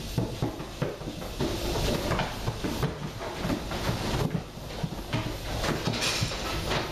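Goats' hooves clattering and knocking irregularly on a raised milking-parlour platform as the goats file in, with a steady background noise underneath.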